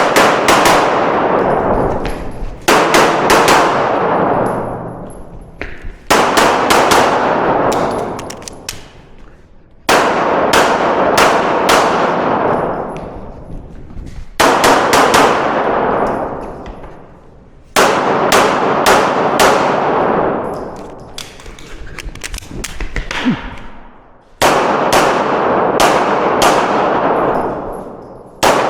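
Handgun firing a course of fire in quick strings of shots, about eight strings of rapid shots with pauses of a few seconds between them. Each string is followed by a long echoing decay.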